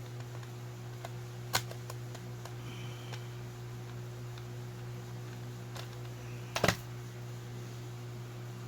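A few sharp small clicks and taps as a RUKO padlock is handled and taken apart: one about a second and a half in and a quick double click about two-thirds of the way through, over a steady low hum.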